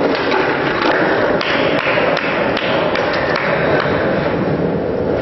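Skateboard wheels rolling over a concrete floor, with a few sharp clacks and taps from the board.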